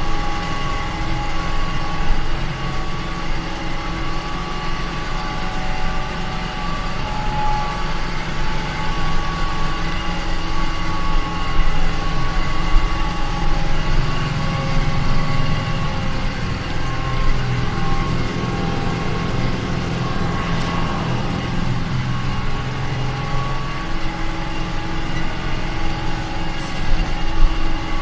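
Kubota M9540 tractor's diesel engine running steadily under load while hauling gravel through mud, with a steady whine over the engine.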